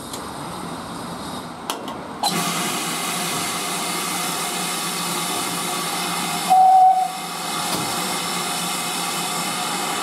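GWR Manor class 4-6-0 steam locomotive No. 7820 'Dinmore Manor' standing in steam, a loud steady hiss of escaping steam starting abruptly about two seconds in. A short, loud single-pitched tone sounds a little past the middle.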